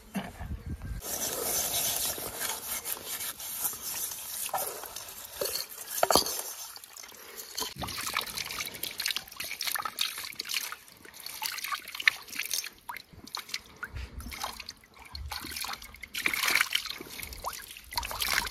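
Water trickling and splashing, with scattered small knocks.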